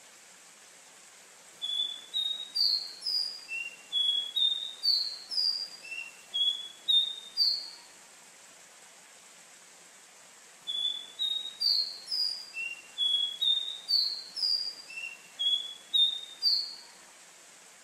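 Caboclinho, a Brazilian Sporophila seedeater, singing two bouts of quick, clear, high whistled notes. Each bout lasts about six seconds, with a pause of about three seconds between them, over a faint steady hiss.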